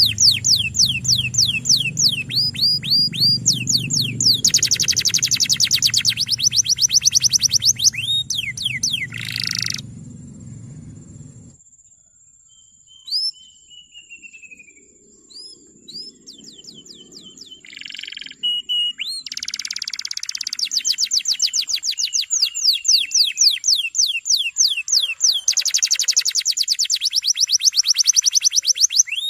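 Male domestic canary singing long rolling trills, fast runs of repeated high notes, the song used to train young canaries to sing. The song breaks off partway for a stretch of a few scattered chirps, then resumes in long rolls. A low hum in the first part cuts off suddenly.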